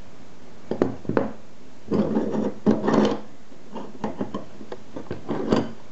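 The steel bolt of a homemade bolt-action rifle being worked by hand in its receiver: two sharp metal clicks, then a rattling, scraping slide of metal on metal, then a few lighter clicks and knocks on a wooden table.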